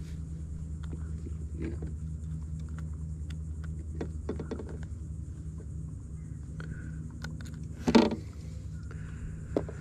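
A steady low engine hum, with a few light clicks of handling, a sharp knock about eight seconds in and a smaller knock near the end.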